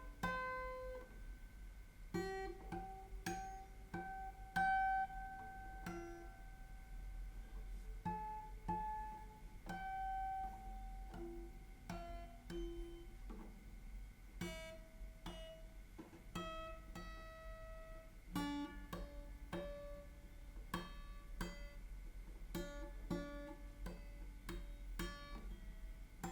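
Yamaha FG850 all-mahogany dreadnought acoustic guitar fingerpicked: a melody of single plucked notes over bass notes, each note ringing on.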